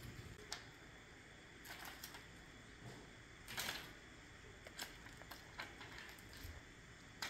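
Scattered soft clicks and rustles, loudest a little past halfway, from a cat batting and biting a feather wand toy.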